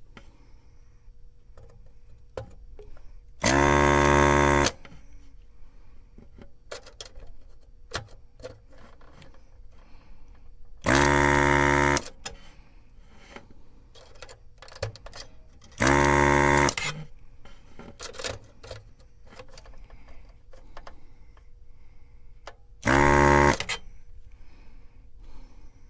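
Desoldering gun's vacuum pump buzzing in four bursts of about a second each, sucking solder from circuit-board joints while old filter capacitors are removed, with faint clicks and taps between the bursts.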